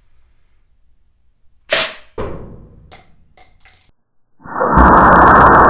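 A home-made CO2-powered wrist-mounted foam missile launcher fires with one sharp, loud pneumatic blast about two seconds in, followed by a short fading tail and a few small clicks. About four and a half seconds in, a loud, muffled, sustained rushing sound begins and holds.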